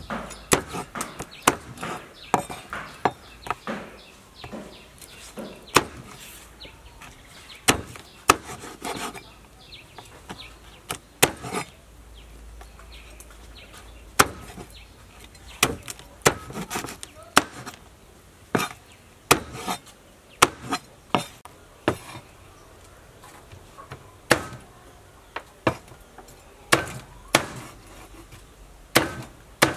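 Meat cleaver chopping quail into pieces on a wooden cutting board: irregular sharp chops, some in quick runs of two or three, others single with short pauses between.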